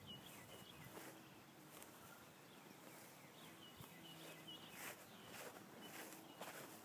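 Near silence outdoors: faint bird chirps every second or so, with a few soft footsteps on grass.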